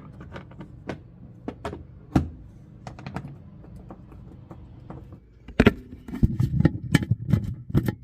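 Small metal clicks and rattles of a key turning a tubular cam lock and the cubby lid being worked, sparse at first. About five and a half seconds in there is a louder knock, then a quick run of knocks and clatter as the lid is pushed and tried against the latch.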